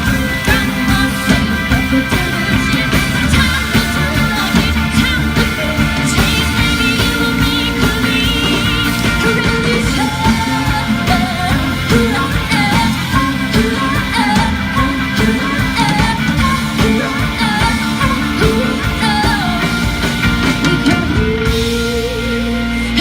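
Amplified rock-style band music with a singer, played loud and steady throughout, as at a live sound check; a sung melody line stands out from about ten seconds in.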